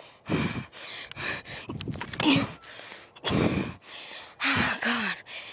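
A person breathing hard, about five heavy gasping breaths a second or so apart, a few of them with a little voice in them.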